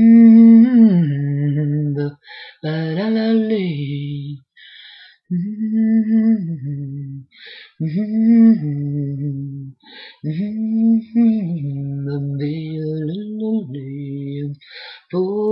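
Unaccompanied voice singing wordless nonsense syllables ("do li li li", "bum ba dee") in short phrases of about two seconds, with brief pauses between them.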